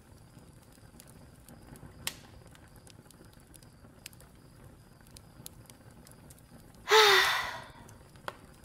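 A woman's breathy, voiced sigh with a falling pitch about seven seconds in, over faint scattered clicks and crackles.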